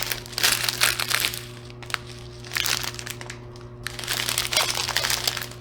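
Small plastic bags of diamond-painting drills crinkling as they are handled, in three bursts with short pauses between, over a steady low hum.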